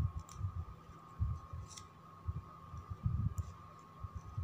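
Muffled, irregular low thumps of handling noise as hands work plastic gift ribbon with metal tweezers, with a few faint ticks. A steady faint high-pitched tone runs underneath.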